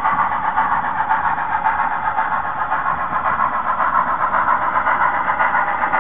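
HOn3 model steam locomotive and freight train running steadily along the track, giving a continuous mechanical running noise.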